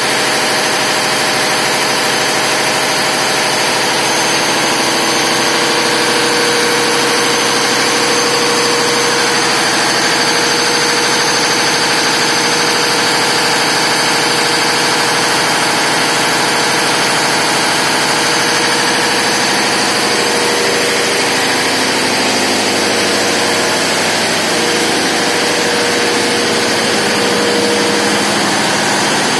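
Large Cummins diesel generator set running at a constant speed, a loud, steady machine noise with a constant hum.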